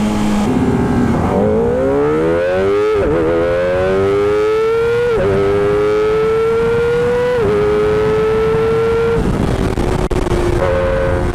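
Kawasaki Ninja ZX25R's 250 cc inline-four engine on its stock exhaust accelerating hard through the gears, heard from the rider's seat with wind noise. The pitch climbs and drops sharply at each quick upshift, three times, then the throttle eases near the end and the engine settles to a lower, steadier note. The rider finds this pull sluggish.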